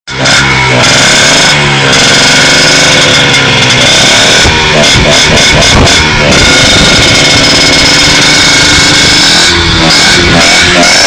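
Peugeot motorcycle engine revving hard, very loud and distorted, its pitch rising and falling again and again. It starts suddenly at full loudness.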